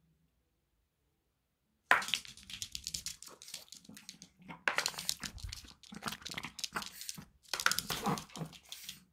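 Chihuahua nosing at the paper liner of a cardboard pizza box close to the microphone, a dense crackly rustling of paper and cardboard. It starts suddenly about two seconds in and comes in four bursts with short pauses.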